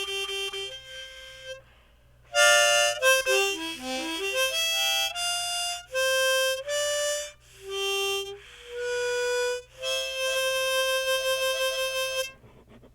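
Music: a melody of single held notes with a quick falling run about three seconds in, breaking off shortly before the end.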